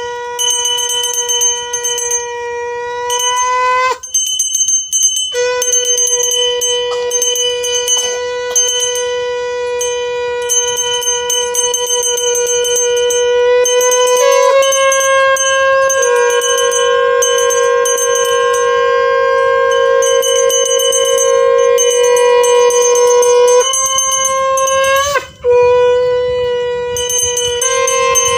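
Conch shell (shankha) blown in long held notes: one steady, horn-like tone that breaks off briefly for breath about four seconds in and again near the end, stepping slightly up in pitch about halfway through.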